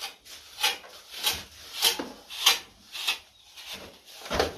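Metal straightedge scraping across fresh cement plaster as a mason screeds the wall, in a steady series of back-and-forth strokes about every half second.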